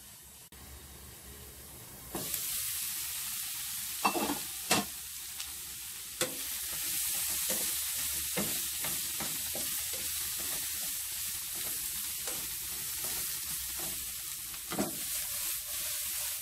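Stir-fried celtuce, hard bean curd and preserved radish sizzling in a wok: muffled under a glass lid at first, then about two seconds in the sizzle turns suddenly loud and steady as the lid comes off and a wooden spatula stirs and tosses the vegetables, with a few sharp knocks of the spatula against the pan.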